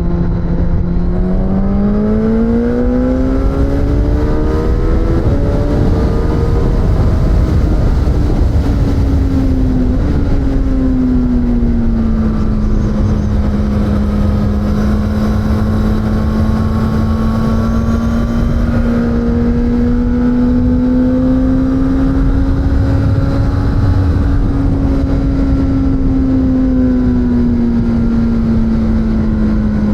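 Suzuki GSX-S1000's inline-four engine under way: the revs climb for the first few seconds, drop back through about ten seconds in, then hold at a fairly steady pitch with gentle rises and falls before easing off near the end, over wind rumble on the microphone.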